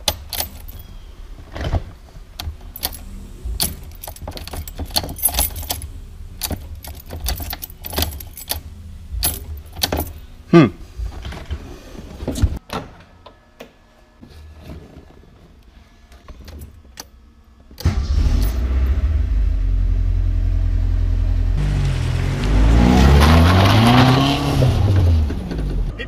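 Keys jangling and clicking in the ignition of a 1982 Alfa Romeo Spider. About eighteen seconds in, its twin-cam inline-four engine starts and runs steadily, and near the end it is revved up once and back down.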